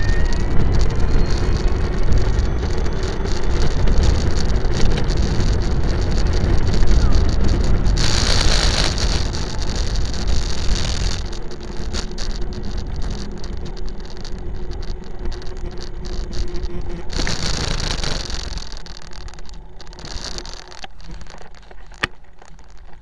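A motor vehicle running, a steady low rumble under a noisy hiss, with two spells of louder hiss and a gradual fade near the end.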